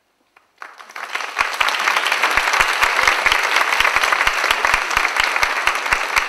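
Audience applauding: clapping breaks out about half a second in and quickly builds to full, steady applause.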